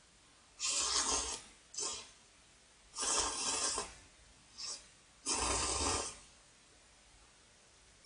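A man slurping thick instant ramyeon noodles: three long, loud slurps a little over two seconds apart, with a short quick suck between each.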